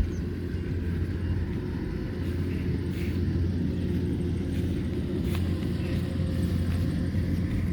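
Rice combine harvester's engine running steadily, a continuous low drone with a few faint ticks over it.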